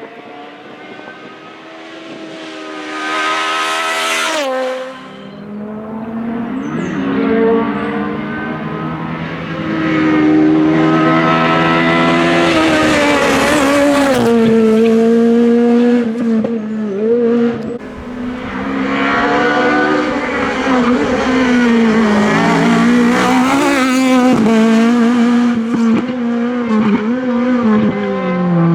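VW Golf IV KitCar rally car engine at high revs, the note climbing and falling repeatedly as it changes gear. About four seconds in, the note drops sharply, then builds again and stays loud.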